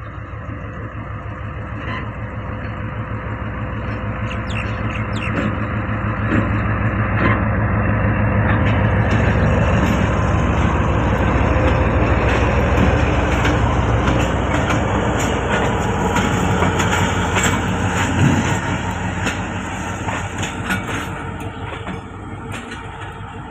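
Pakistan Railways GMCU-15 diesel-electric locomotive pulling a passenger train away from the station and passing close by. Its diesel engine runs under power, grows louder to a peak about halfway through, then fades. As the coaches roll past, the wheels click over the rails.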